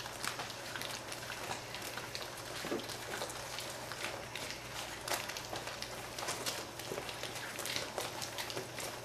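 Four-week-old Greater Swiss Mountain Dog puppies lapping and smacking mush from their bowls at their first meal: a dense, irregular patter of small wet clicks.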